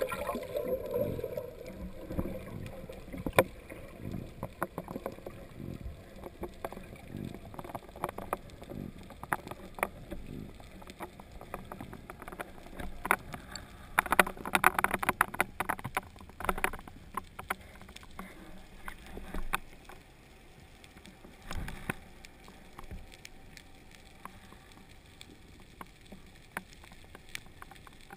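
Muffled underwater noise of a freediver swimming down with a speargun: a low water rush with many scattered sharp clicks and knocks, louder for a couple of seconds about halfway through.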